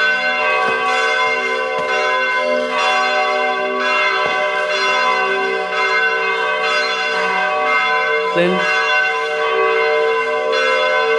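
Church bells rung by hand with two pull ropes, ringing continuously. A fresh strike comes about once a second, and the bell tones hang on and overlap.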